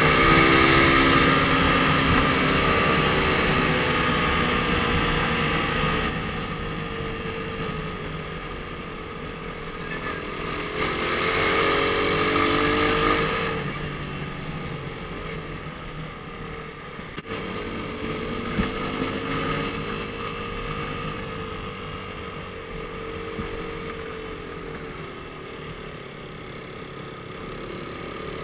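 Suzuki Raider R150 motorcycle's single-cylinder engine running while riding in traffic, its pitch rising and falling with the throttle, over rushing road and wind noise. It is loudest over the first few seconds and swells again about twelve seconds in.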